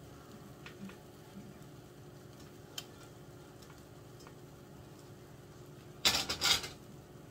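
A few faint clicks of a frying pan and spatula, then near the end a loud clatter and scrape of the metal frying pan and spatula on an electric stove's coil burner, lasting under a second.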